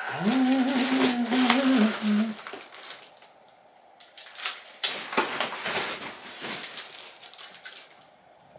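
A person hums a short, wavering tune for about two seconds, then scattered rustling and small clicks of packaging being handled.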